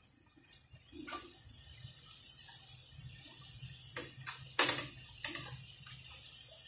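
Glutinous rice dough balls shallow-frying in hot oil in a pan: a steady sizzle broken by sharp pops and the click of metal tongs against the pan, the loudest about two-thirds of the way in. The popping is what the cook takes as the sign that they are cooking through.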